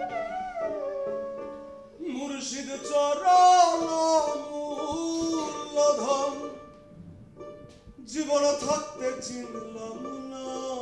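Live band music with a man singing an ornamented, gliding melody over instruments. The voice drops away briefly about seven seconds in, then comes back.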